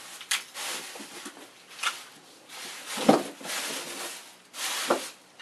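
Plastic shopping bag and tissue wrapping rustling and crinkling as items are pulled out and unwrapped by hand. A few sharp knocks come through it, the loudest about three seconds in.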